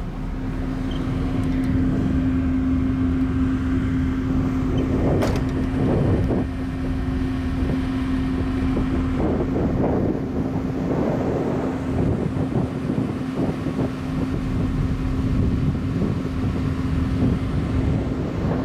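Steady drone of a car ferry's machinery on the open deck at sea, with a constant low hum and wind buffeting the microphone. It grows louder over the first two seconds, and a sharp click comes about five seconds in.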